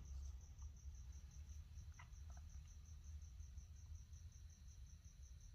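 Faint cricket chirping steadily in a high, even pulse of about eight chirps a second, over a low background hum.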